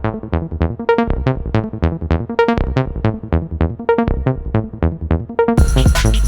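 Electronic music: a fast, repeating pattern of short synth notes, about four or five a second, joined by a full beat with heavy bass about five and a half seconds in.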